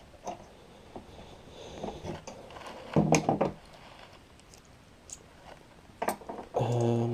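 A few small clicks and knocks of metal handling, as a picked lock and lever pick are set down and the next lock is taken up. A short voiced murmur comes about three seconds in, and speech begins near the end.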